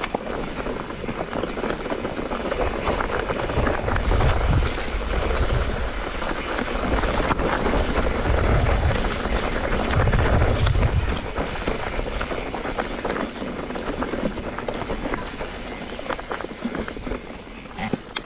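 A mountain bike ridden over rough ground: wind rumbling on the microphone, with a dense clatter of tyres and bike over the trail. The rumble swells about four seconds in and again from about eight to eleven seconds.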